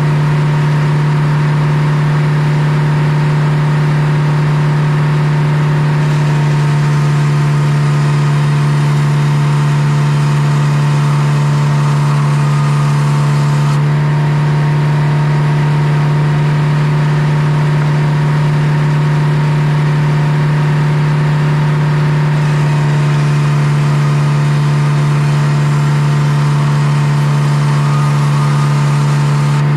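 Circular sawmill running: the large head saw spins under power while the carriage feeds a poplar log through it. A loud, steady mechanical hum that shifts slightly in tone a few times.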